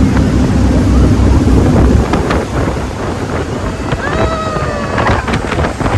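Jet boat running at speed, with heavy wind buffeting the microphone; the wind rumble drops off about two seconds in, leaving the hiss of the boat's rush through air and water.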